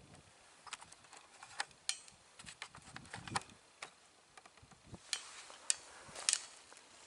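Scattered light clicks and short rustles close to the microphone: handling and movement noise in dry grass. They come irregularly and grow louder about five seconds in.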